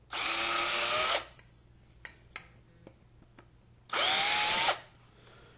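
Handheld power drill enlarging holes in a 3-inch PVC pipe, run twice for about a second each, the motor whine rising as it spins up. A few small clicks come between the two runs.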